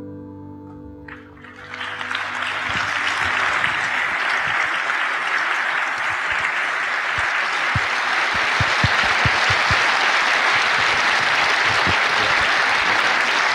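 The backing music dies away on a held chord, and about a second and a half in a large audience breaks into applause that keeps going steadily.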